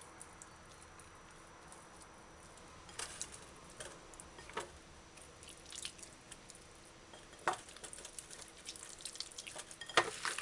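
Raw chicken pieces rubbed together by hand in a bowl to work in ground cayenne pepper: faint, scattered wet squishes and clicks, coming more often near the end.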